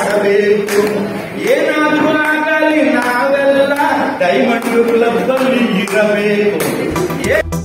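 A man singing into a microphone over a PA loudspeaker, in long held notes that waver and glide in pitch. In the last moment it cuts to electronic dance music with a steady beat.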